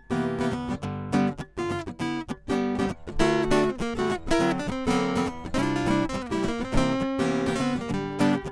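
Instrumental opening of a rockabilly song: guitar strummed and picked in a quick, steady rhythm.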